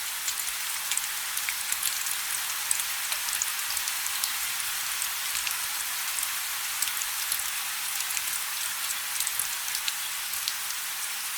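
Steady rain falling, a constant hiss with many separate drops ticking on a surface.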